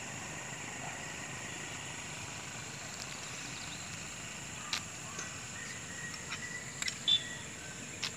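Quiet outdoor ambience with a steady high hiss and a few sharp light clicks, the loudest a little past seven seconds in.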